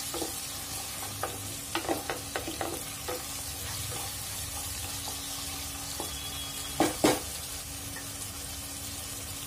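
Sliced onions and goat meat sizzling in hot oil in a pressure cooker pan while being stirred with a wooden spatula, which scrapes and knocks against the pot. A run of light knocks comes early, and two sharper, louder knocks about seven seconds in.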